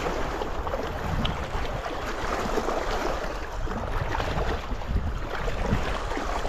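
Wind buffeting the microphone in a steady low rumble, with choppy lake water washing against the rocky shore.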